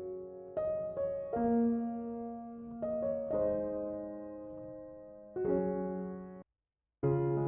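Background piano music, slow notes struck and left to ring and fade. It cuts out abruptly for about half a second near the end, then starts again.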